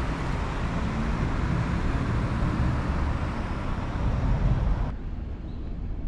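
Road traffic noise: a car on the road giving a steady rush of tyres and engine that swells a little, then cuts off suddenly about five seconds in.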